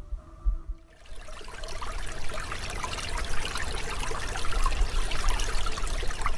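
Water splashing and trickling, starting abruptly about a second in as a dense crackle.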